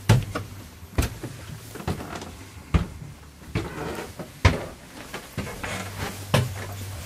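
Footsteps climbing wooden stairs: heavy thudding steps about once a second.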